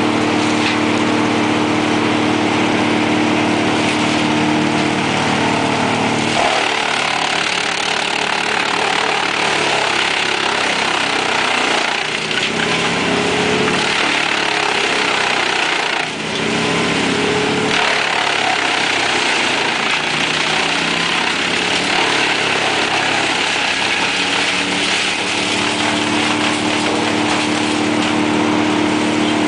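Truck-mounted drum wood chipper running at full speed. A steady engine hum turns into a rougher, noisier chipping sound about six seconds in, as brush and branches are fed in and chewed up. The steady hum returns near the end.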